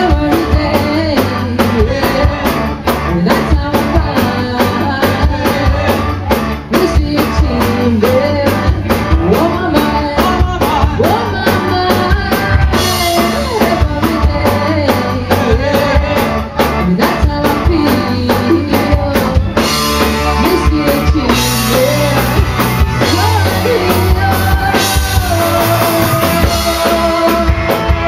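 Live rock band playing: a drum kit keeping a steady beat under electric guitars, with a woman singing lead.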